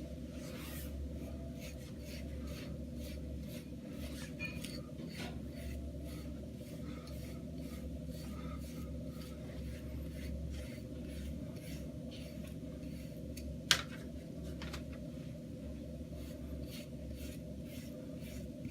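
Repeated scratchy strokes of a hard curved boar-bristle wave brush being drawn over short hair to lay the waves down, over a steady low room hum. One sharp click, the loudest sound, about 14 seconds in.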